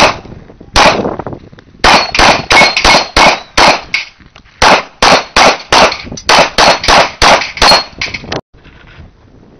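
Handgun fire in rapid strings: nearly twenty pistol shots at about three a second, with short pauses between strings, stopping about eight seconds in. Some shots are followed by a thin metallic ring from steel targets being hit.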